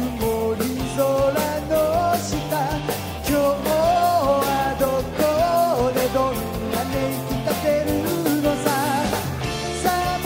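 Live rock band playing loudly: drums keep a steady beat under bass, guitar and a lead melody line that bends and ornaments its notes.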